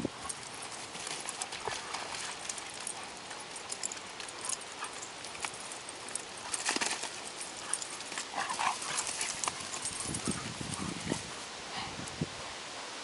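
Irregular paw thuds of two weimaraners galloping and chasing each other over grass and mud, with a few short dog vocalizations near the middle and the end.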